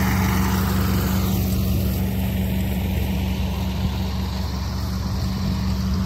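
Small ride-on rice combine harvester running steadily while cutting, a low even engine drone that gets slightly quieter in the second half.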